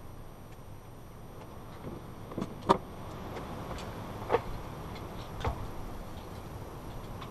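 A crossbow being handled and cocked, giving a few short sharp clicks and knocks, the loudest about two and a half seconds in and two lighter ones later.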